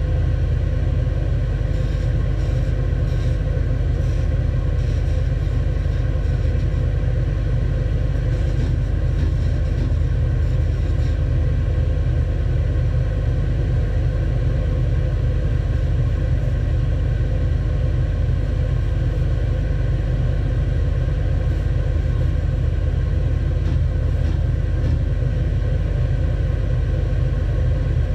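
Stationary edge belt sander running steadily with a low hum, with faint scratching now and then as small wooden tiles are held against the moving belt.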